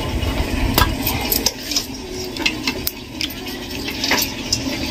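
A ladle scraping and knocking in a metal pot as chicken curry gravy is scooped out, with irregular clinks of utensils against steel plates.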